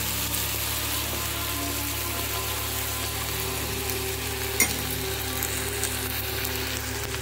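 Mushroom curry sizzling and bubbling in a non-stick kadai, stirred with a spatula at first. A single sharp click about four and a half seconds in.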